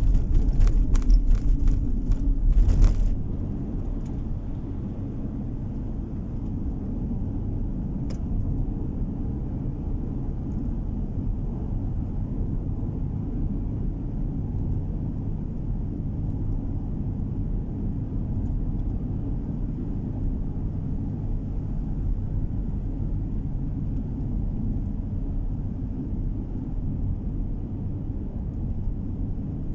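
Car driving, heard from inside the cabin: a steady low road and engine rumble. A louder, crackly rush over it for the first three seconds drops away abruptly as the car passes into a road tunnel.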